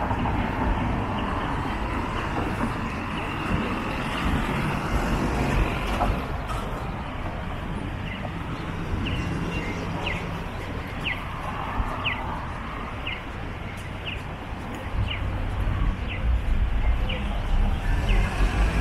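City street ambience: steady traffic noise, with a run of short high chirps about once a second through the middle and a low rumble building near the end.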